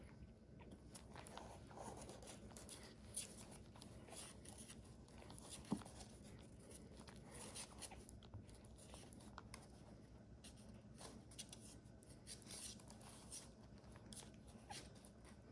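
Near silence, with faint soft rustling and scattered small clicks from newborn puppies nursing and shifting against their mother's coat.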